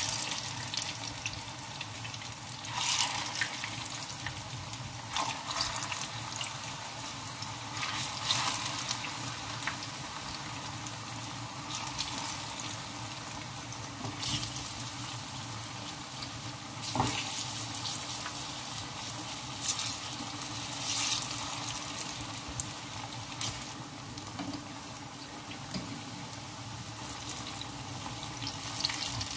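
Plantain slices frying in hot oil in a frying pan: a steady sizzling hiss that swells several times as more slices are laid in and turned.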